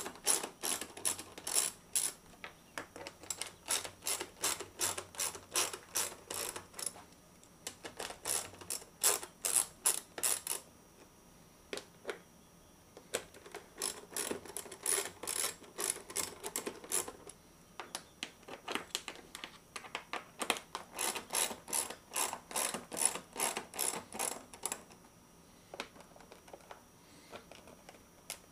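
Hand ratchet clicking, several clicks a second, in runs broken by short pauses, as it backs out the 6 mm hex screws holding a motorcycle airbox lid.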